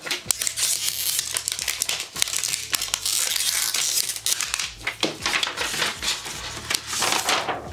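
Clear plastic shrink-wrap being torn and peeled off a product box, crinkling and crackling with many small snaps.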